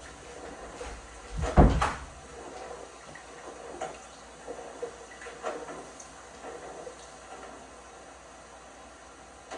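LG washing machine tumbling a load of clothes, with one heavy thud about a second and a half in and light scattered knocks after it.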